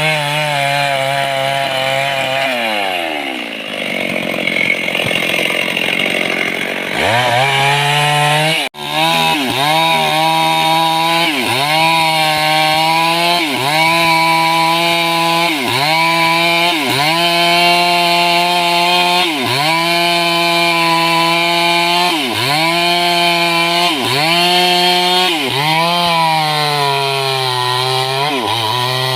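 Stihl chainsaw at full throttle cutting mahogany wood. Its revs drop about two seconds in and climb back near seven seconds, with a brief break just before nine seconds. After that the engine note sags and recovers every second and a half or so as the chain bites into the timber under load.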